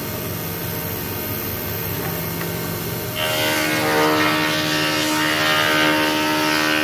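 Spindle moulder (wood shaper) running steadily; about three seconds in the cutter starts cutting a wooden strip fed along the fence, and the sound gets louder and noisier with steady tones through it.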